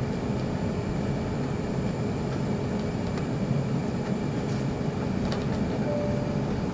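Cabin noise of an Airbus A380 rolling on the ground after landing: a steady low rumble with a constant hum over it.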